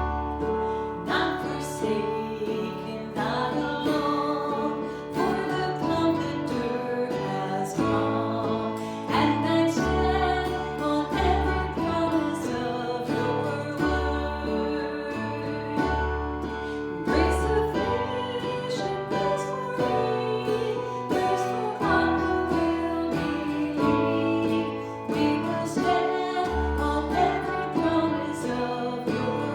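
Music: acoustic guitar strumming with a steady bass line and singing.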